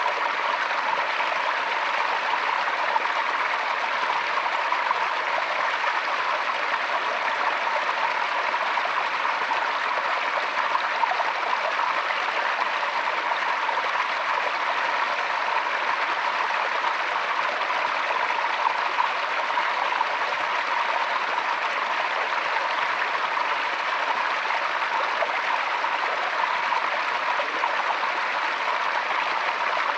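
Forest stream flowing over stones, a steady, even babble and rush of water.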